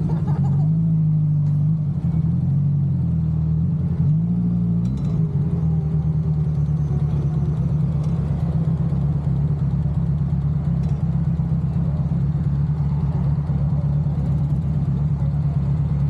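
Motorcycle engine running close by, blipped up and down three times in the first five seconds, then held at a steady idle.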